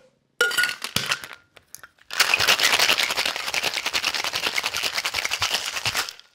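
A few sharp clinks of ice and metal as the cocktail shaker's two metal tins are closed over the ice. Then the shaker is shaken hard for about four seconds, ice rattling rapidly inside, and it stops abruptly.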